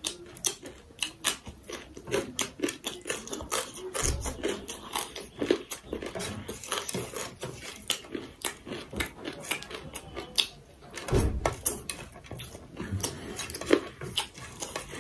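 Close-miked eating by hand: a steady run of short, crisp mouth clicks and chewing, with fingers scraping food together on a ceramic plate. Two dull thumps come about four and eleven seconds in.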